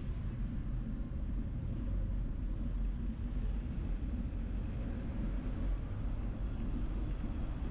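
Steady low rumble of street traffic and road noise, heard from a bicycle moving along a city street.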